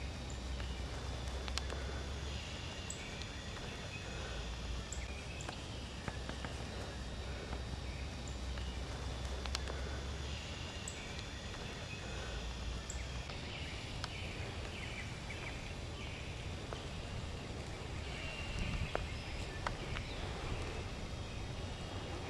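Spring woodland ambience: small birds chirping and calling faintly, over a steady low rumble, with a few sharp ticks and snaps.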